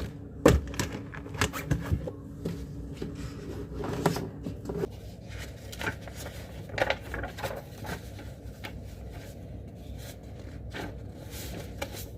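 Scattered light clicks, taps and scrapes of objects being handled, over a low steady room hum.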